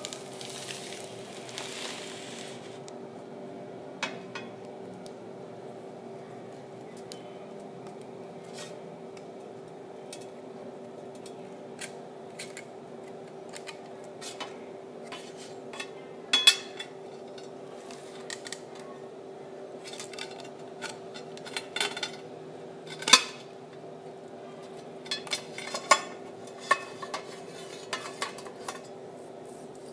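Glass plates clinking and tapping against each other and against a steel plate as they are handled and fitted together into a wedge: scattered light knocks, denser and louder in the second half, over a steady low hum.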